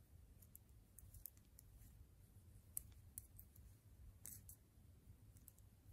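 Faint, irregular clicks of metal knitting needles touching as stitches are worked, over a low steady room hum.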